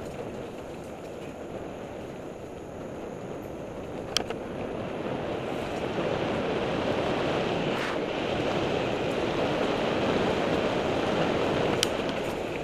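Wind rushing over the microphone and mountain bike tyres rolling fast on a dirt singletrack, getting louder as speed builds about halfway in, with a few sharp clicks from the bike rattling over bumps.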